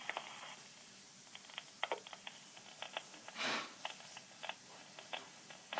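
Faint irregular clicks and crackle on a quiet telephone line between recorded menu prompts, with one short hiss of noise about three and a half seconds in.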